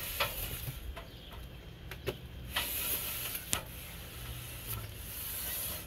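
Scattered sharp clicks and knocks of metal handling, with two stretches of scraping hiss, as the RV's new rooftop air conditioner is worked up the ladder on rails.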